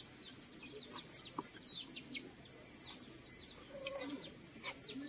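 Chickens calling: many short, high, falling peeps repeated throughout, with a few lower clucks, over a steady high-pitched hiss.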